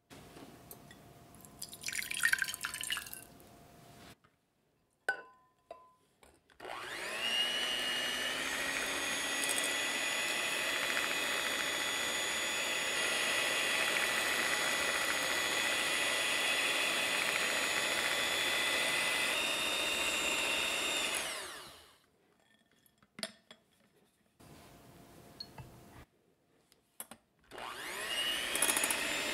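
Electric hand mixer with twin wire beaters whipping warmed whole eggs and sugar in a glass bowl: the motor whirs up to speed and runs steadily for about fifteen seconds, stops, and starts again near the end. Before it, a few clinks and knocks from the glass bowl being handled.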